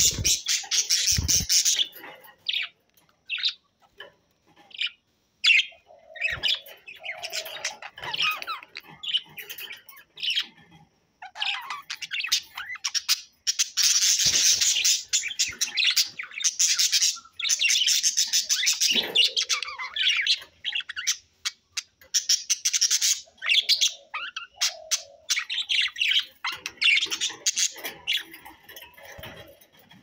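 Several pet budgerigars chattering and warbling. Stretches of busy, dense chatter lasting a few seconds alternate with short single chirps.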